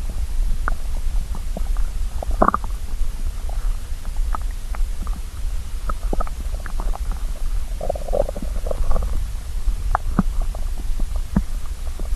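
Hungry, empty stomach growling: a steady low rumble with scattered short gurgles and pops, and a longer bubbling gurgle about eight seconds in.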